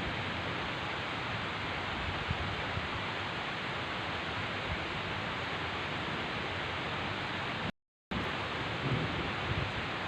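Heavy rain falling steadily as an even hiss, cut by a brief total dropout about eight seconds in. Near the end a low rumble of thunder begins to build.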